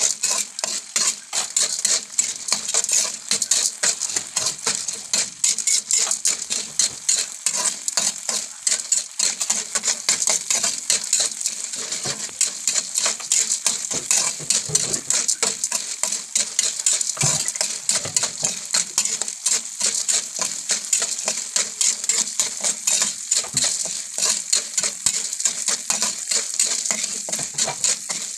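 Unpopped popcorn kernels stirred around a pan with a metal spatula: a steady, dense rattle of kernels clicking and scraping against the pan, with a hiss underneath. The kernels are still heating and have not begun to pop.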